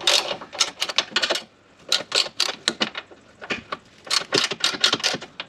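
Ratchet spanner clicking in short quick runs as it is swung back and forth, undoing the 13 mm nuts on a control-arm bush mount.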